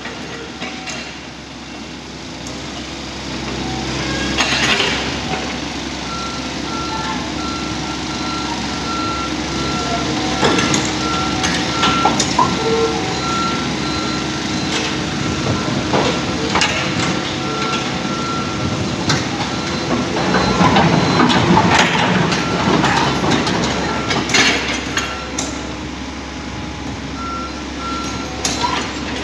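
Excavator working with its diesel engine running and its travel alarm beeping over and over from about six seconds in, with scattered metal clanks and a louder stretch of track clatter about two-thirds of the way through.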